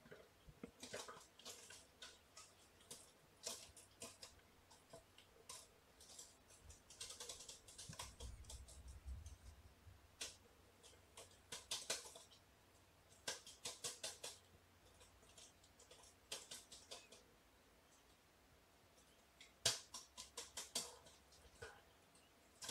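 Faint, irregular light clicks and soft rustles, some coming in quick little clusters, with near silence between them.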